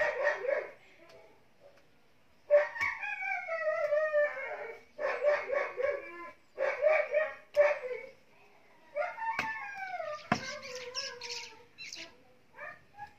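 A dog whining and yelping again and again: drawn-out whines that slide down in pitch, with bursts of short yelps between them. A couple of sharp knocks from a hoe striking the soil come through around the middle.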